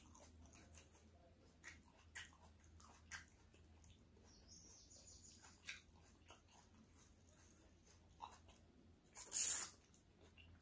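Eating eba and peanut soup by hand: scattered soft wet clicks and smacks of fingers and chewing mouth, with one louder wet mouth sound about nine seconds in as a handful goes into the mouth.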